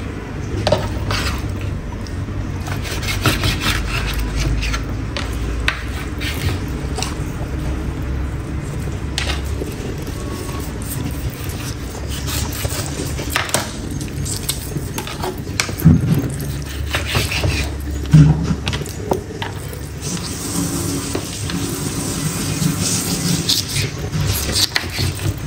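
A kitchen knife cutting up a raw chicken on a wooden cutting board: scattered knocks of the blade against the board and handling of the meat, over a low background rumble.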